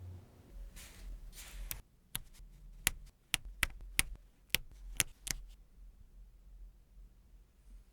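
Two short scraping or rustling sounds, then about a dozen sharp, irregular clicks and taps of small hard nail-care tools and items being handled.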